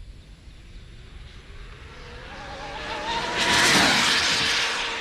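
High-speed battery-powered RC car racing past: its motor's whine and tyre noise build over a couple of seconds, peak loudly about three and a half seconds in as it goes by, and drop in pitch as it moves away.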